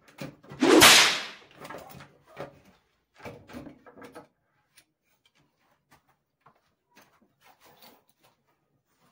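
A loud scraping swish about a second in, then light knocks and scrapes of a steel ruler, try square and pencil being handled on a board while marking out; after about four seconds only faint ticks.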